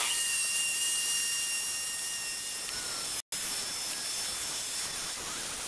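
Handheld electric angle grinder (a Tool Shop brand) running steadily with a high whine while grinding down the metal ball stud of a hatch-strut bolt held in pliers. The sound drops out for an instant a little past halfway.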